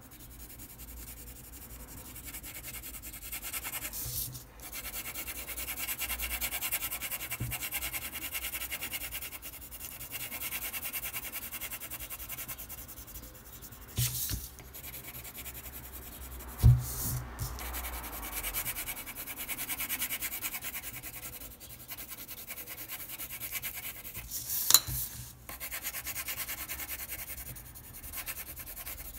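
Colored pencil scratching back and forth on paper as an area is shaded in, with a few sharp knocks, the loudest about halfway through.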